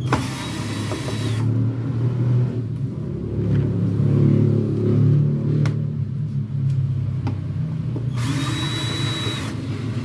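Cordless drill-driver spinning out the screws of an LED TV's back cover: two short runs of motor whine, one at the start and one near the end. A steady low rumble runs underneath.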